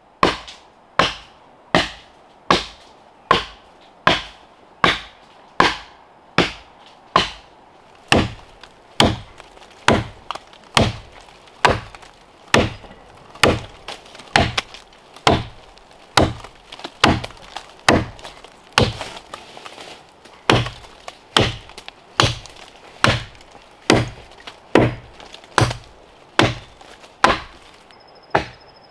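Axe chopping into a standing tree trunk, cutting a felling notch: sharp wooden blows in a steady rhythm, a little more than one a second.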